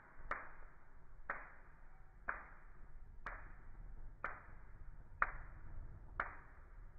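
Evenly spaced sharp clicks, about one a second, each followed by a short fading hiss.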